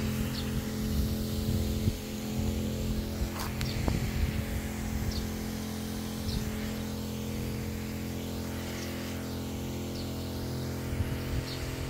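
Small motor-driven water sprayer running with a steady hum while spraying a fine mist of water.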